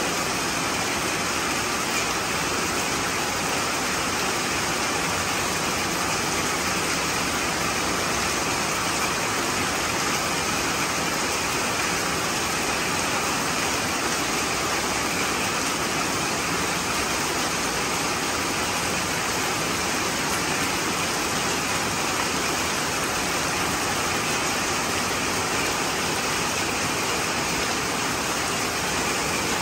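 Steady rush of falling water: rainwater pouring from a roof downspout and splashing onto a person bathing under it and onto wet concrete.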